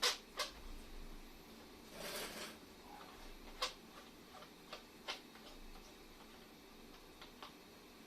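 Irregular sharp clicks and taps of tools and metal parts during disassembly of an air compressor, with a short scrape about two seconds in; the loudest click comes right at the start.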